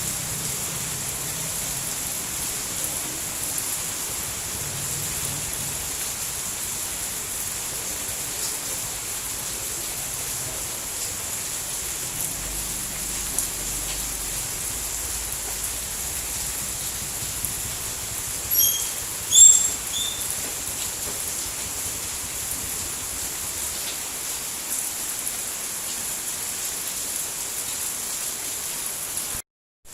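Steady rain falling, an even hiss. A few short high chirps come about two-thirds of the way in, and the sound cuts out briefly just before the end.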